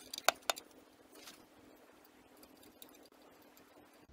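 Gloved hand unscrewing an oil pan drain plug by hand: three sharp metallic clicks in the first half second, then only faint background noise.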